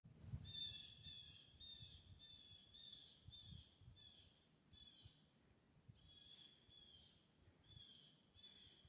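A small bird calling over and over: a quick series of short, high calls, a little under two a second, with a brief pause about five seconds in. Soft low thumps of wind or handling run underneath.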